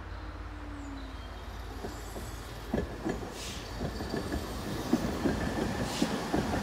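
Tatra tram running on the track: a steady low rumble, then from about three seconds in its wheels clatter over the rails in quick, irregular knocks that grow louder, with a faint high whine above.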